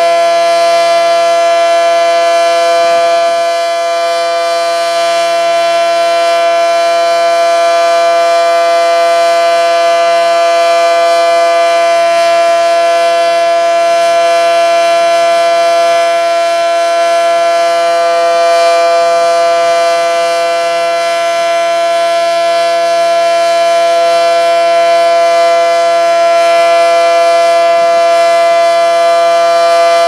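Renfro SD10 outdoor warning siren sounding a steady test tone held at full pitch: two strong tones together with many overtones, not rising or falling, the loudness dipping slightly a couple of times.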